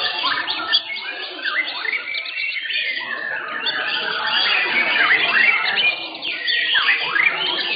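Several white-rumped shamas singing at once: a dense, overlapping run of loud whistles, chirps and quick rising and falling glides.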